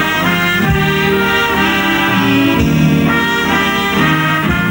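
A big band with saxophones, brass and violins plays an instrumental passage with no singing, the saxophones prominent among held, changing chords.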